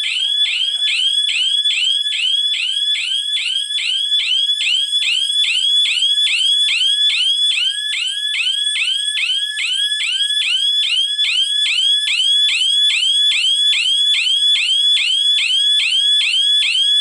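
Siren of a GSM security alarm system sounding a fast repeating rising whoop, about three a second, set off because zone one tripped while the system was armed.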